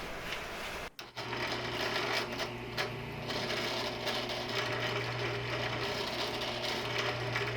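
Drill press motor running steadily while drilling into metal, with a low, even hum. It starts about a second in, after a brief drop in sound.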